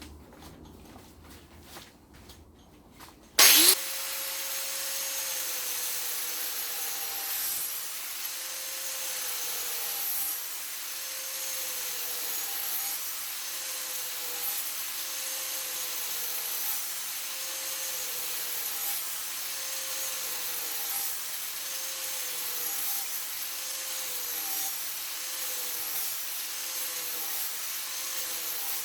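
Small angle grinder with a Kutzall shaping dish switching on with a sharp jump in loudness about three and a half seconds in. It then runs steadily as the carbide dish shaves a silver birch log, its pitch dipping and recovering every second or so as it bites into the wood. Before it starts there are a few light handling clicks.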